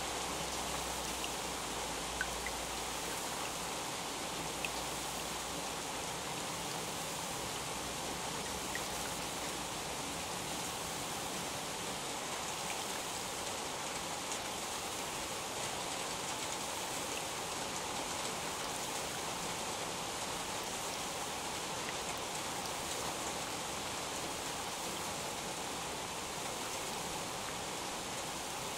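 Steady rain: an even hiss with a few faint ticks here and there.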